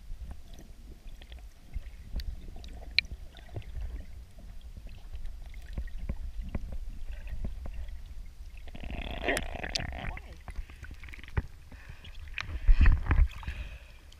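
Muffled underwater sound heard through a submerged camera: a low steady rumble with scattered clicks, a brief louder burst about nine seconds in, and louder sloshing near the end as the camera comes up through the surface.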